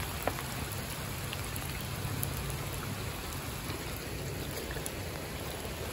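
Steady rain falling on a wet asphalt road, with rainwater running along the curb.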